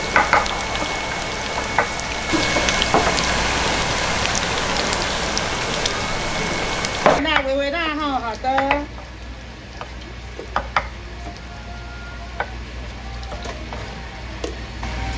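Radish cakes frying, a steady sizzle with scattered clicks. About seven seconds in, the sound cuts off abruptly to something much quieter: a brief wavering pitched sound, then a few light clicks.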